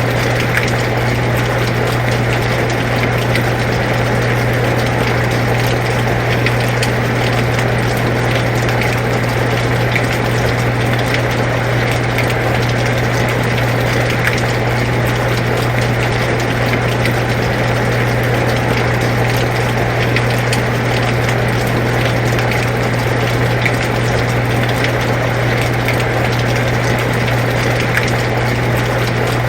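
Air conditioner running with a steady low hum, under the even hiss of rain with faint scattered drop ticks.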